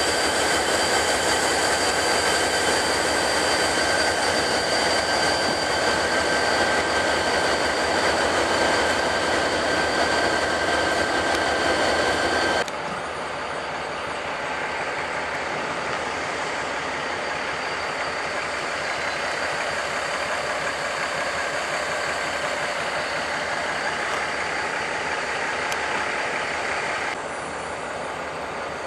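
Freight train of covered hopper cars rolling past, with steady wheel-and-rail noise and a steady high-pitched whine over the first part. The sound drops off abruptly about twelve seconds in, then steps down a little near the end.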